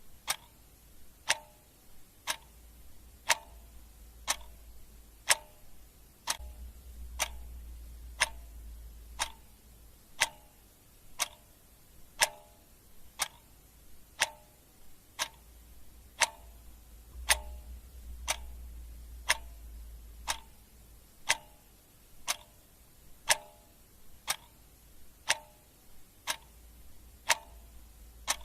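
Clock ticking at a steady pace, about one louder tick a second with softer ticks between.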